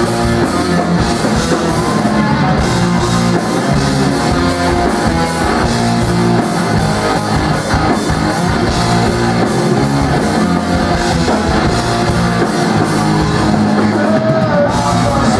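Live rock band playing a song: electric guitars, bass and drum kit, steady and loud.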